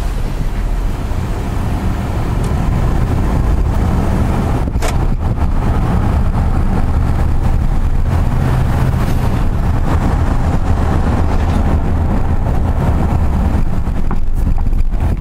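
Car driving along a road: steady low rumble of engine and tyre noise, with one brief click about five seconds in.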